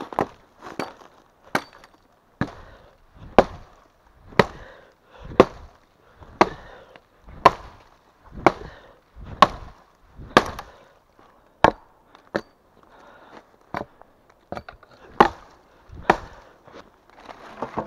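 Axe chopping wood: sharp strokes about once a second, with lighter knocks in between.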